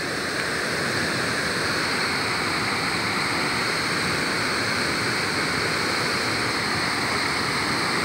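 Steady rushing of a large waterfall, an even hiss-like roar of falling water that holds constant throughout.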